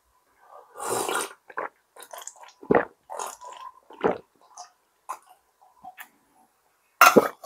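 A person drinking makgeolli in a series of gulps and swallows spread over several seconds, with a brief, louder, sharp sound near the end.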